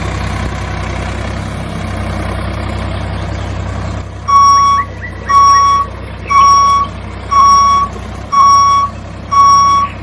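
Vehicle reversing alarm beeping, six short high beeps about one a second, starting about four seconds in; beforehand a steady low engine hum.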